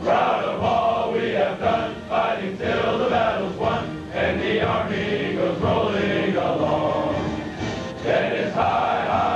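A U.S. Army ceremonial song played, with a choir of voices singing over the music.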